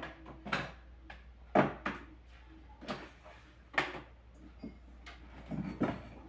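Household objects being handled and set down on a low cabinet: a series of separate knocks and clunks, roughly one a second, with a faint steady hum underneath.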